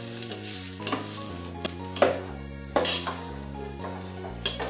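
Metal spatula stirring and scraping raw rice around a stainless steel pot as the rice fries in oil and ghee, in irregular scrapes over soft sizzling. Background music with steady sustained notes plays throughout.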